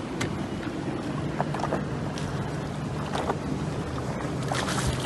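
Steady low rumble of wind on the microphone and water around a small boat, with scattered short splashes and knocks as a snook is grabbed at the side of the boat and lifted from the water.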